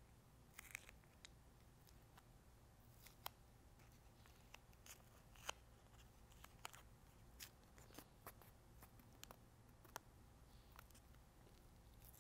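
Faint, scattered small clicks and crinkles of masking tape being handled and pressed around the coupler at the end of a carbon control rod, holding the glued coupler in place.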